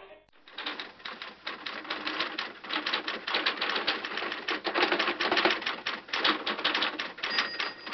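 Typewriter typing: a fast, uneven run of key strikes, with a thin high tone sounding near the end.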